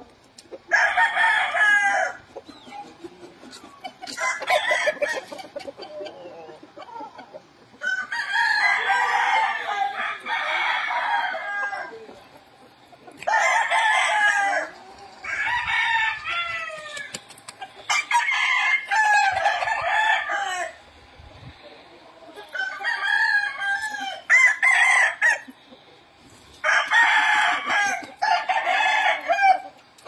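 Game roosters crowing over and over, a loud crow every few seconds, some crows running into one another.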